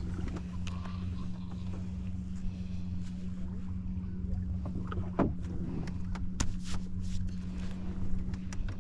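Electric trolling motor running with a steady hum. A few light knocks and clicks sound on the boat, the loudest about five seconds in.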